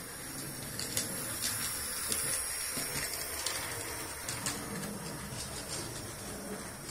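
Model steam locomotive running on a layout's track: a steady motor and wheel rumble with scattered clicks of wheels over the rail joints.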